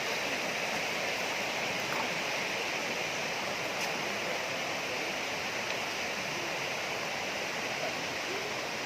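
Steady rush of flowing water from a waterfall or fast stream.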